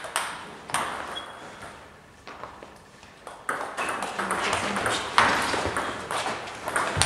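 Table tennis ball clicking off the bats and the table during a doubles rally: a few hits in the first second or so, a short lull, then a quicker run of hits from about three and a half seconds in.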